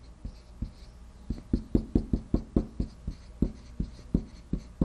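Marker writing on a small whiteboard: a quick irregular run of short taps and strokes, thickest in the middle.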